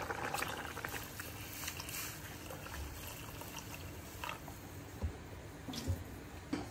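Kitchen sounds of cooking: liquid splashing, with scattered light clicks and a few soft knocks near the end.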